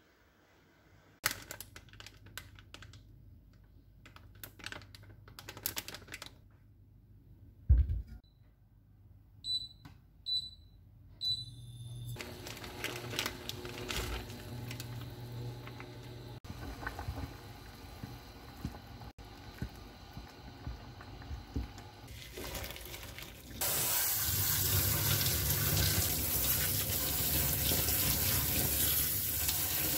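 Kitchen work sounds: a few scattered clicks and knocks, then three short high electronic beeps. Next comes a steady hiss of a pot of boiling water as buckwheat noodles are dropped in. About three-quarters of the way through, a kitchen tap turns on and runs steadily, loudest of all, onto soba noodles being rinsed in a stainless steel strainer.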